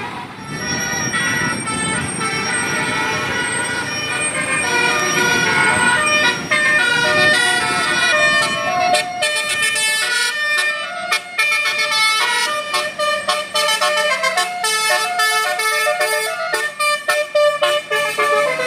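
Bus 'telolet' horn, a set of multi-tone air horns, playing a tune of changing notes over a bus engine running. Past the halfway point the engine sound drops back and the horn plays quick, choppy on-off notes.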